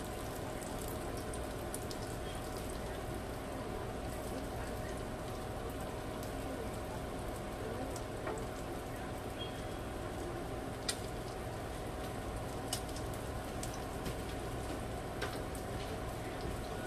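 Breaded fish fillets frying in shallow oil in a pan, a steady sizzle with a few sharp ticks in the second half.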